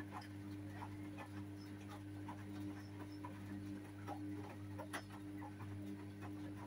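Hotpoint WMA30 washing machine tumbling its drum during the rinse: a steady motor hum with the laundry dropping and sloshing in soft, irregular knocks.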